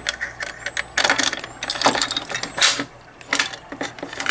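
Simplex fire alarm pull station being reset with its key: a series of sharp metal clicks and clacks as the key turns in the lock and the station is opened, its pulled handle pushed back and the cover shut.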